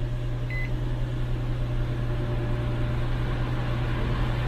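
Car HVAC blower fan running and blowing air through the dash vents, a steady rush that grows slightly louder, over a constant low hum. One short electronic beep sounds about half a second in.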